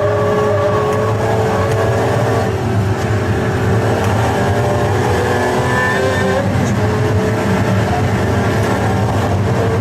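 A supercar's V12 engine running hard at high revs, its pitch climbing slowly, with a brief break in the note about six and a half seconds in.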